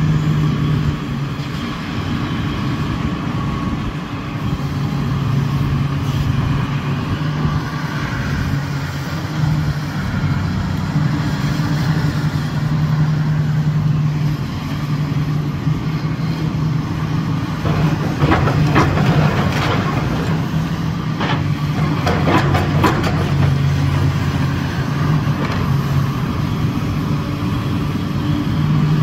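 Komatsu PC360 LC excavator's diesel engine running steadily during demolition work. From about 18 to 23 seconds in there is a stretch of crunching and clattering as building material is broken and falls.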